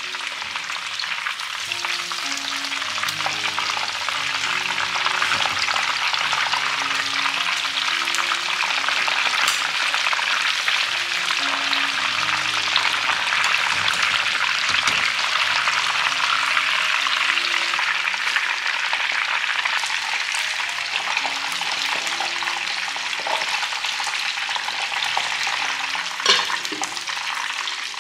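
Flour-coated chicken pieces frying in hot oil in a pan: a dense, steady sizzle. A single sharp knock comes near the end.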